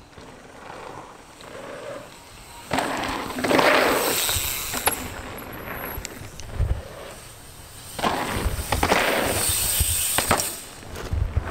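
Mountain bike tyres tearing over a dirt downhill trail in two loud rushes, each a couple of seconds long, with sharp clicks and knocks from the bike over rough ground.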